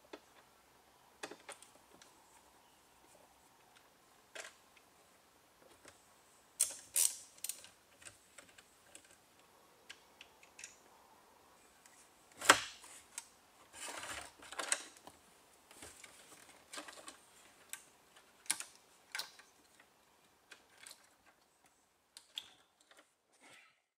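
Irregular plastic and metal clicks, knocks and rattles as a car radio head unit is worked loose and pulled out of a 2001 Citroën Xsara's dashboard, with one sharp knock about halfway through.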